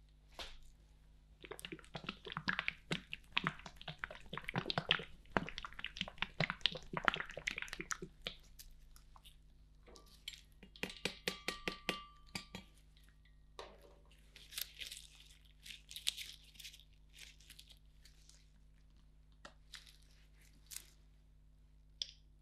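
Metal spatulas working frozen ice cream on a cold ice-cream-roll pan: dense crunching and scraping at first, a quick run of even taps a little before the middle, then lighter scrapes and scattered clicks.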